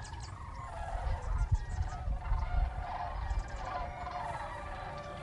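A large flock of sandhill cranes calling in flight, with many overlapping calls from birds throughout the flock. A low rumble runs underneath.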